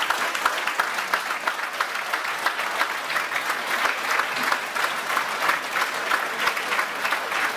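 Audience applauding steadily, many hand claps blending into a continuous patter.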